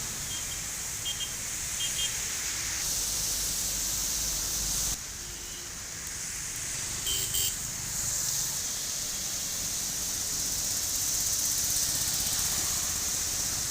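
Steady hiss of rain and wet traffic on a city street, with short vehicle horn toots a few times in the first two seconds and again about seven seconds in. The level drops abruptly about five seconds in.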